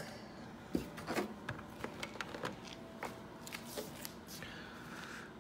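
Scattered light clicks, taps and rustling of hands handling ingredients and utensils during cooking prep.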